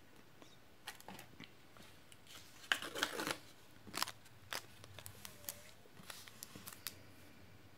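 Paper and a ballpoint pen handled on a desk: a run of short rustles, taps and clicks, the loudest cluster about three seconds in.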